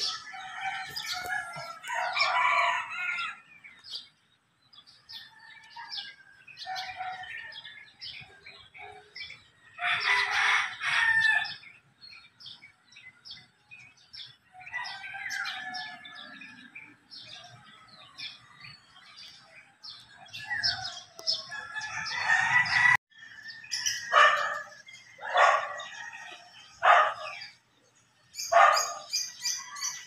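Small birds chirping in the trees, with a rooster crowing several times, each crow lasting about a second.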